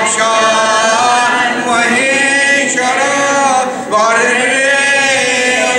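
A mixed group of men and women chanting a Sanskrit hymn together in a sung, melodic recitation. It runs in phrases of about two seconds, with short breath breaks between them.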